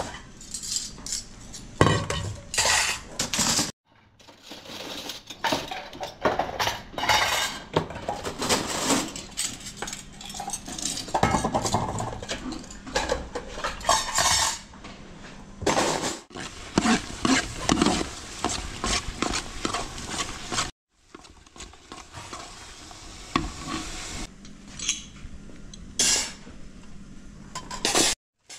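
Kitchen clatter of dishes, pots and metal utensils being handled and stirred: many irregular clinks and knocks. The sound breaks off into brief silences three times.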